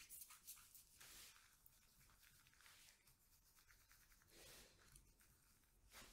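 Near silence, with a few faint soft rubs: latex-gloved hands sliding over paper cards on a tabletop.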